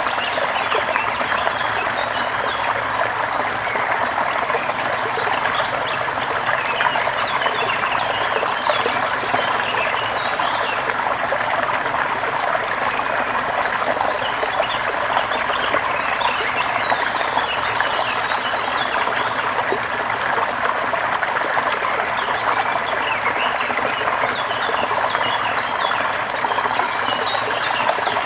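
Steady flowing forest stream water, with many short, high animal calls scattered over it.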